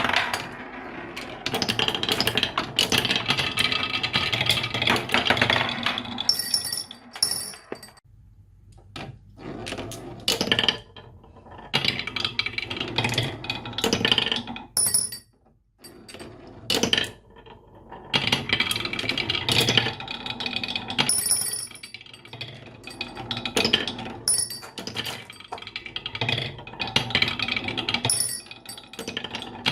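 Marbles rolling and clattering down a wooden marble run, with rapid clicks and sharp ringing clinks as they knock against the track and one another, coming in bursts with brief pauses.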